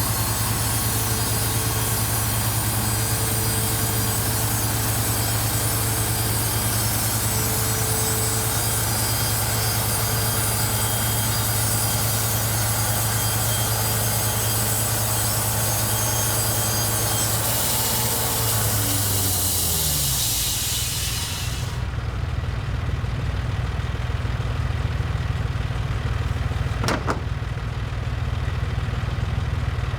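Band sawmill running at working speed with a steady engine hum and a high hiss. About two-thirds of the way through, the engine's pitch falls as it drops back to a lower, pulsing idle, and the high hiss stops suddenly a few seconds later. A single sharp click comes near the end.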